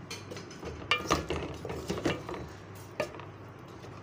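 Wooden spatula stirring chicken in thick gravy in a metal pot, knocking and scraping against the pot's side. A cluster of knocks with a short metallic ring comes about a second in, then single knocks near two and three seconds.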